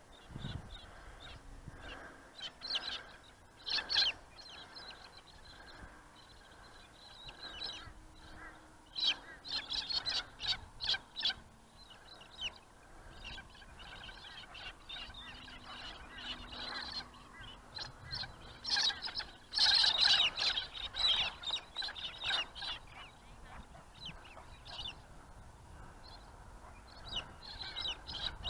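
A flock of birds calling in several bursts of rapid, honking calls, loudest about twenty seconds in, over a faint steady background.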